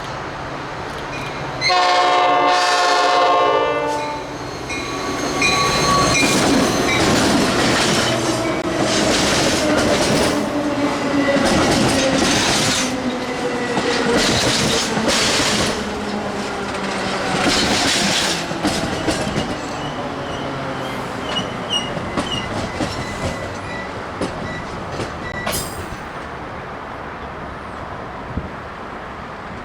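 Nathan Airchime P5 five-chime air horn on a Metra commuter train, sounding one loud chord about two seconds in. The train then passes, its wheels clacking over the rail joints, with a drone that falls slowly in pitch and a level that eases off toward the end.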